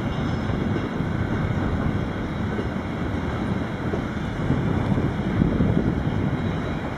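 Wind buffeting the microphone over the low, steady rumble of a freight train of empty flatcars rolling past on a far track.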